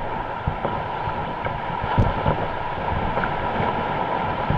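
Wind buffeting the microphone: a steady rush with irregular low thumps.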